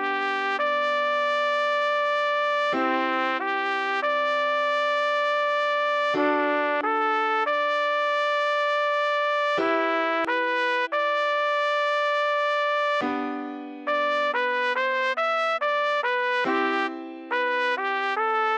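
Trumpet playing a slow melody note by note, over sustained piano chords that change about every three and a half seconds: the tutorial tune at half speed.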